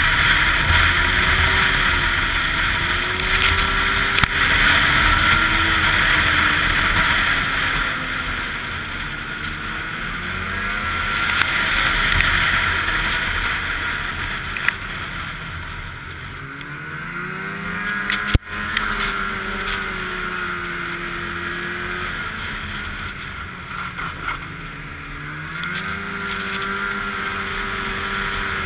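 Snowmobile engine running at speed, its pitch sagging and climbing with the throttle, with clear rises about two-thirds of the way in and again near the end. Heavy wind noise on the microphone, and one sharp click a little past the middle.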